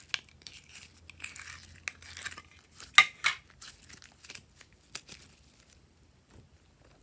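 Crinkling and tearing of plastic packaging being handled and opened, with scattered sharp clicks. The loudest snap comes about three seconds in, and the sound dies down near the end.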